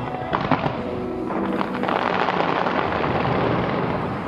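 Aerial fireworks going off: a few sharp bangs about half a second in, then a dense crackling of many small bursts. Music plays underneath.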